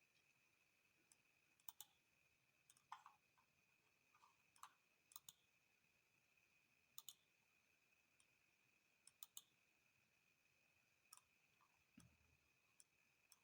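Near silence, with a faint steady high whine and faint, sharp clicks scattered irregularly, about a dozen in all.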